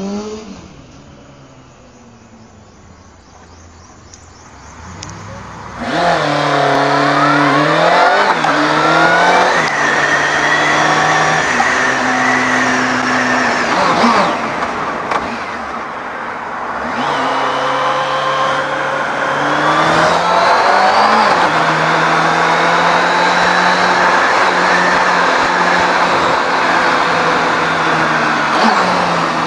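Motorcycle engine heard from the bike itself, accelerating and shifting up through the gears, its pitch climbing and dropping back with each shift, over steady wind and road noise. The first few seconds are quieter, with an engine tone fading away.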